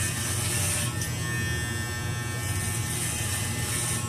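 Electric hair clipper buzzing steadily as it shaves a man's head short, with a brighter rasp swelling twice as the blades pass over the scalp.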